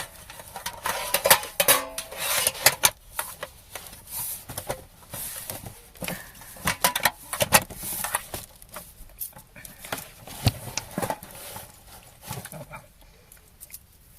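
Hands rummaging through cellophane- and foil-wrapped chocolates in a metal tin: wrappers crinkling, with many quick clicks and clinks of the sweets against the tin.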